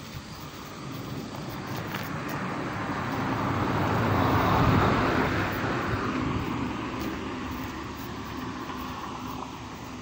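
A passing vehicle: a broad, rushing noise that slowly swells to its loudest about halfway through and then fades away.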